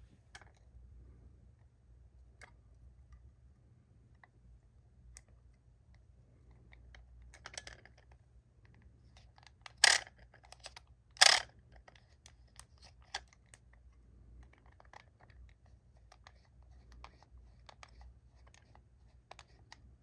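Plastic Kamen Rider Geats Water Raise Buckle toy handled in the hands: scattered light plastic clicks and rubbing, with two much louder short bursts of handling noise about a second and a half apart midway.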